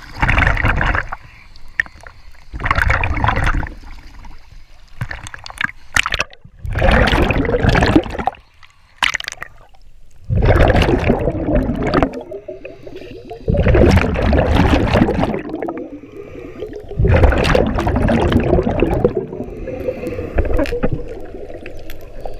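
Scuba diver breathing through a regulator underwater: the exhaled bubbles gurgle out in loud bursts about every three to four seconds, some seven breaths in a row, with quieter gaps between for the inhale.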